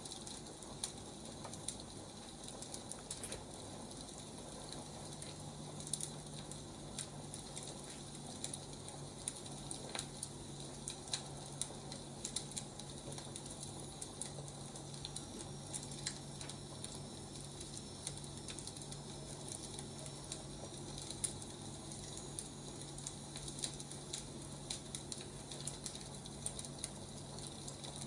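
Firewood burning, crackling with irregular pops and snaps over a steady hiss. A low steady hum comes in about four seconds in.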